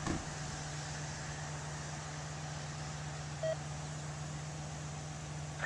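Chevrolet Silverado pickup engine idling steadily, with one short beep about three and a half seconds in.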